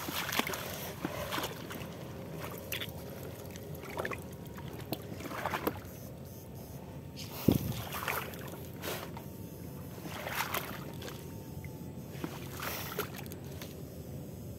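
Water splashing and sloshing in irregular strokes every second or two, the sharpest about halfway through, as shallow water is worked during electrofishing.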